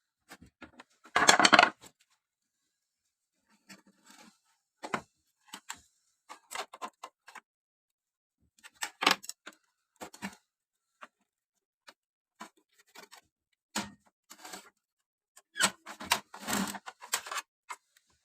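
Scattered clicks, taps and short clattering of small hard objects being handled, with a loud rattle about a second in and a busier run of clatter near the end.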